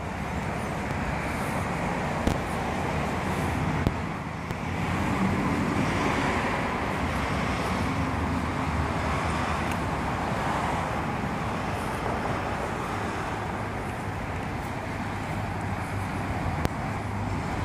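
Steady outdoor road-traffic noise, with a few brief clicks.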